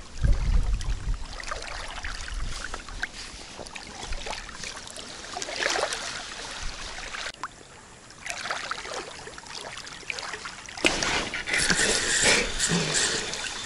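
River water sloshing and lapping, with wind rumbling on the microphone at the start. A louder stretch of noise comes in about eleven seconds in.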